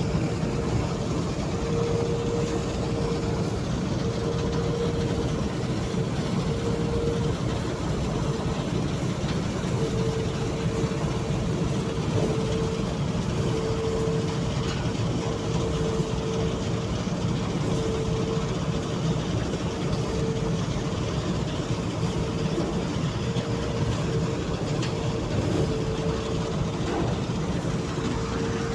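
New Holland combine harvester running steadily, its engine and machinery giving a constant low drone with a steady whine on top.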